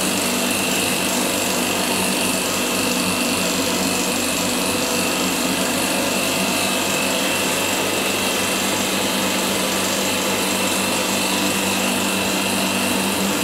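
Electric damp-proof-course injection pump running steadily, pumping fluid through hoses to probes drilled into the brickwork: a constant hum with a steady high whine above it.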